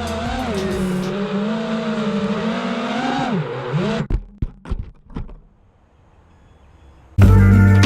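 5-inch FPV quadcopter's brushless motors whining, the pitch wavering up and down with the throttle. About four seconds in the whine stops amid a few sharp knocks. Music comes in near the end.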